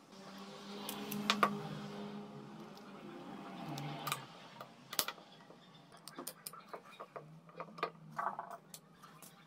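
Scattered light clicks and taps, as of small parts being handled, over a low steady hum. The clicks come thickest in the last few seconds.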